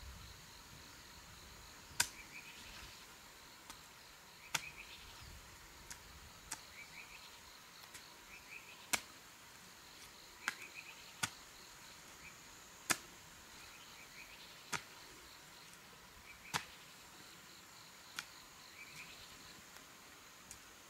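Sharp, irregular clicks, one every second or two, over a steady chorus of insects with faint short chirps.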